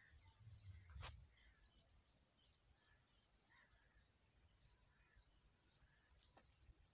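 Quiet field ambience: a faint steady high-pitched trill with short chirps repeating about twice a second, and a faint knock about a second in.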